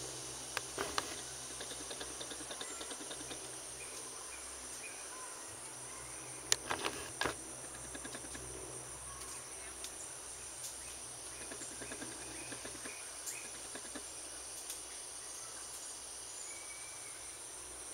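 Steady high-pitched insect chirring. A few sharp clicks or knocks come about a second in and again around six to seven seconds in, with fainter ticks in between.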